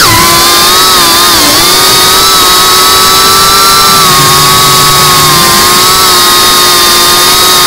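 FPV drone's brushless motors and propellers giving a steady high-pitched whine at cruising throttle. The pitch drops sharply at the start and climbs again near the end as the throttle is eased and then raised.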